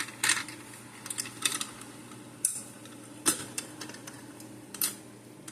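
Light clicks and taps, about five spread over several seconds, from a fire alarm pull station being handled, over a faint steady hum.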